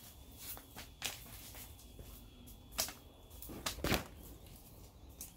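Handling noise of a camera being picked up and repositioned: scattered rustles and knocks, the loudest pair a little past the middle.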